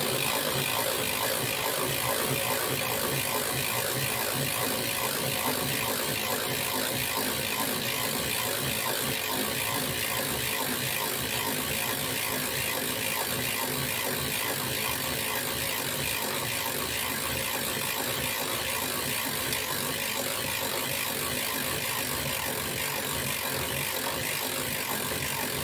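BayGen Freeplay wind-up radio's crank handle being turned over and over, winding the internal mainspring through its gears: a steady, rapid mechanical clicking and whirring.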